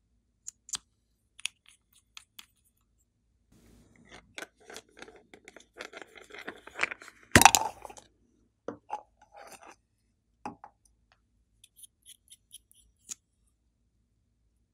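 Small plastic containers being handled and opened: scattered light clicks and taps, a busier run of rustling and clicking in the middle with one loud clack about halfway through, then a few faint clicks.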